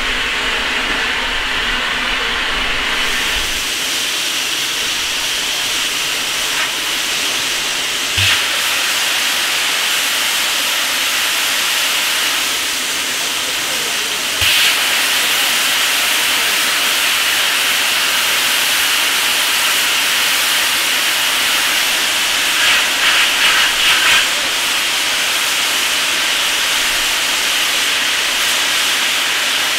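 Steam blowing off from the safety valves on the boiler top of a South African Class 26 steam locomotive: a loud, steady hiss while the valves are being set. It gets louder about halfway through, after a short knock, and flutters rapidly for a moment near the end.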